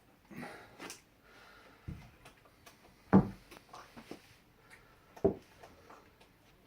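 Handling noises: a soft rustle, then two sharp knocks a couple of seconds apart, the first the louder.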